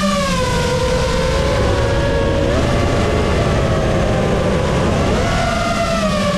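Lumenier QAV-S 5-inch FPV quad's motors and propellers whining, with the pitch falling over the first two seconds and rising again about five seconds in as the throttle changes, over a steady rush of prop noise.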